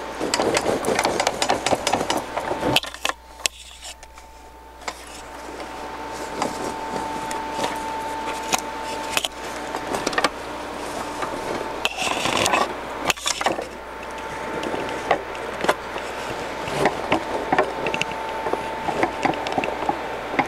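A pleated fabric vacuum filter and its metal wire frame being handled: scraping and rustling with many short clicks as the wire frame is worked out of the pleats, dropping off for a moment a few seconds in.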